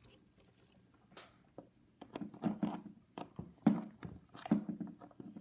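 Wooden toy pieces handled on a wooden play house, giving light knocks and clicks. It is quiet for about two seconds, then a quick run of wooden clacks follows.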